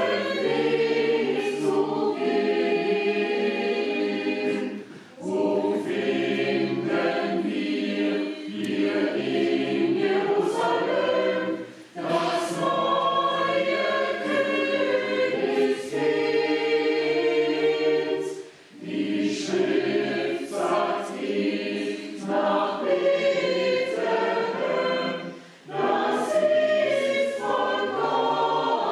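Church choir singing, phrase after phrase, each ending in a brief pause for breath.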